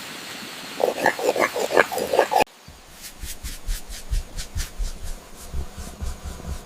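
A cat making a quick run of short, grunting calls. After a sudden cut about two and a half seconds in, there is a quieter, low rhythmic rumble.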